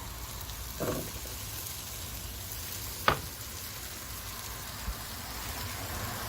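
Oily onion-and-tomato curry base sizzling steadily in an electric frying pan as cubed potatoes are added and stirred in, with one sharp knock about three seconds in.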